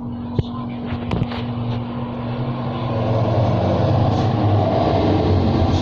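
A motor running with a low rumble that grows louder about halfway through, over a steady hum, with a couple of sharp clicks near the start.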